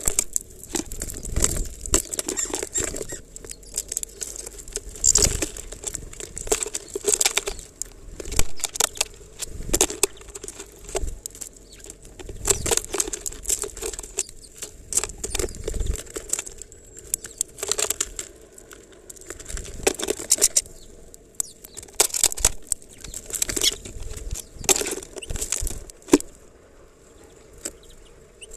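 Sparrow pecking and rummaging in sunflower seeds inside a plastic-bottle feeder, close up: irregular clicks and rattles of seeds knocked against the plastic, with rustling. The clicking thins out near the end.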